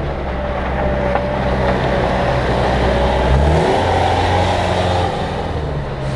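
Cat 236B3 skid steer's diesel engine running steadily, its pitch shifting a couple of times as the machine is worked, with a wavering higher whine over the engine note.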